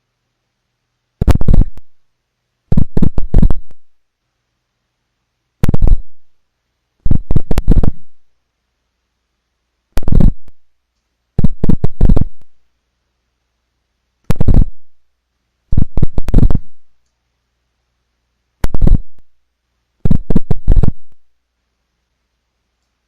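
Refrigerator giving off its Morse-code-like signal as loud clusters of sharp clicks: a short cluster, then a longer one of several clicks about a second and a half later. The pair repeats five times, about every four and a half seconds.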